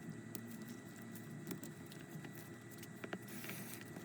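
Faint, scattered light clicks and taps of small repair tools against the opened iPhone X's internals as its display flex cables are worked loose, over a faint steady high-pitched whine.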